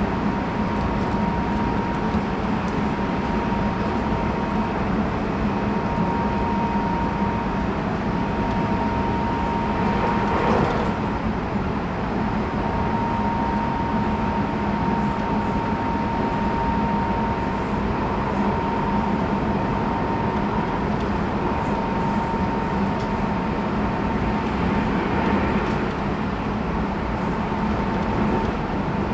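Running noise inside a Tobu 20400 series electric train motor car at steady speed: wheels rumbling on the rails with a steady whine, and a brief swell in the noise about ten seconds in.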